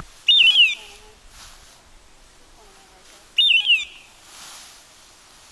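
A short, high, stepped-down bird-like call sounds twice, three seconds apart, identical each time. This matches the electronic hawk-scream of a pointing dog's beeper collar, which sounds when the dog is on point.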